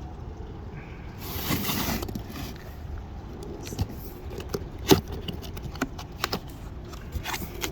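A cardboard box being handled and opened: a scraping rush about a second in, then a scatter of sharp clicks and knocks as the flaps and packing are moved, one knock standing out about five seconds in.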